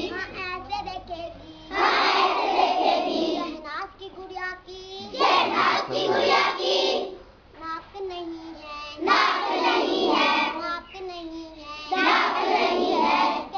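Girls' call-and-response singing: one girl sings a line alone and a chorus of girls answers loudly, four times over.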